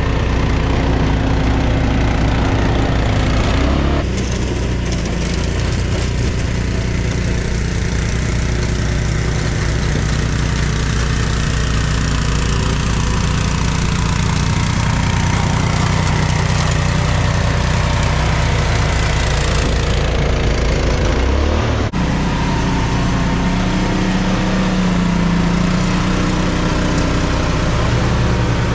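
A vehicle engine running steadily, its sound changing abruptly about four seconds in and again about three-quarters of the way through.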